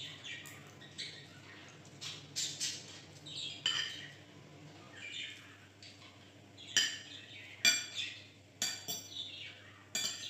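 A caged pet bird chirping in short, repeated calls, mixed with a metal spoon and fork clinking against a plate. The sharpest clinks come a few times in the second half.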